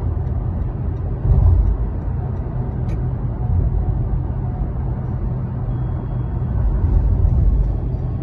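Road noise inside a moving car: a steady low rumble of tyres and engine at highway speed, swelling briefly about a second in and again near the end.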